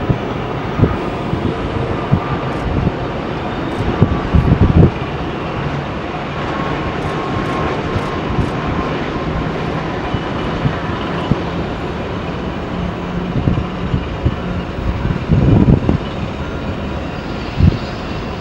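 Airbus A330-300's Rolls-Royce Trent 700 jet engines at approach power as the airliner comes in low to land: a steady jet roar with a faint high whine that fades about halfway through. A few loud low buffets of wind on the microphone break in, around four seconds in and near the end.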